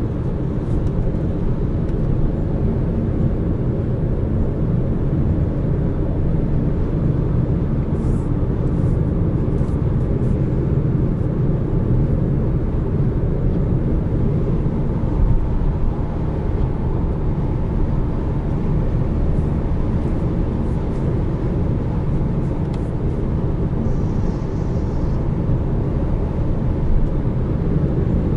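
Steady in-cabin drone of a Volkswagen Passat with a 1.5 TSI petrol engine cruising at motorway speed: mostly road and tyre noise with a low engine hum underneath. A few faint ticks come about a third of the way in and again past the middle.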